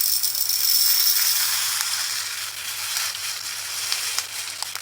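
A stream of tiny resin diamond-painting drills pouring out of a bag into a storage container: a hissing rush of beads that starts suddenly, is strongest in the first second or two, then tapers off.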